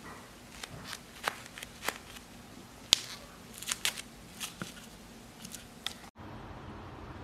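A thin, clear glitter-slime bubble squeezed and crumpled in the hand, giving a series of sharp, irregular crackles and pops, the loudest about three seconds in.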